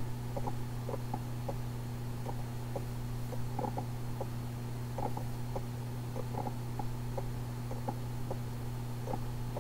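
Plush sleeping-cat toy's internal mechanism running: a steady low hum with soft, irregular clicks a few times a second.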